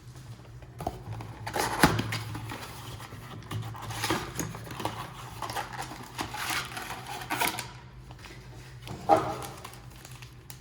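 Hands opening a trading-card blaster box: plastic wrap and cardboard rustling and crinkling, with two sharp knocks, one about two seconds in and one near the end.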